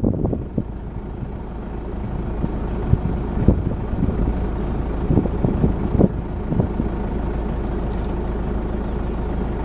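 A vehicle's engine idling steadily, with scattered knocks and bumps, and a faint high bird call about eight seconds in.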